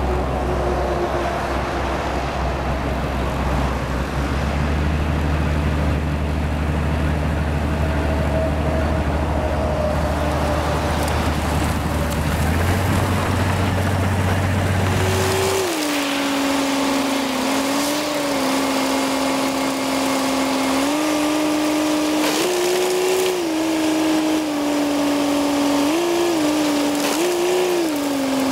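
Railway rotary snowplow working through deep snow, its engine running continuously. In the first half it is a steady low drone; about halfway through it changes to a higher engine tone that steps up and down in pitch several times as the engine speed varies.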